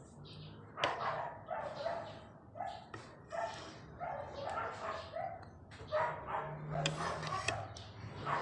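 A dog barking over and over, about two short barks a second, starting about a second in.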